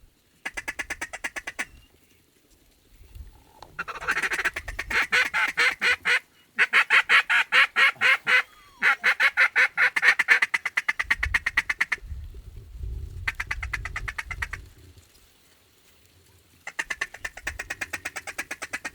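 Runs of rapid, evenly paced duck quacking, loudest and longest through the middle, with a shorter run near the end and low rumbling noise beneath at times.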